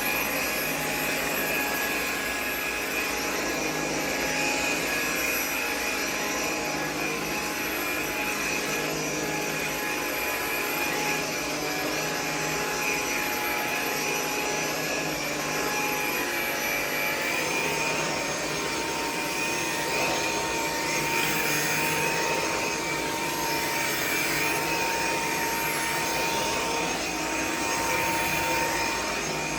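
Dreo cordless stick vacuum running steadily: a high motor whine over a rushing airflow hiss. A little past halfway the motor note steps up slightly in pitch.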